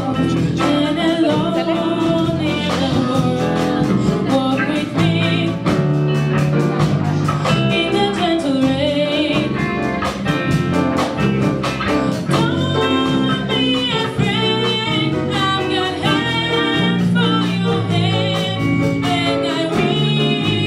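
A voice singing a slow song with vibrato over guitar accompaniment.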